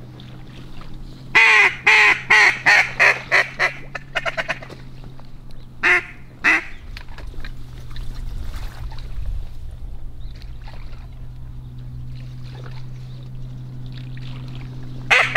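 Mallard-style quacking in a descending series: about ten loud quacks that come quicker and fade, then two more quacks about six seconds in, and another loud series starting near the end. A steady low hum runs underneath.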